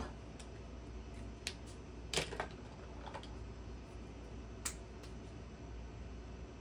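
A few scattered small clicks and taps, the loudest a quick double tap a little over two seconds in, over a low steady hum.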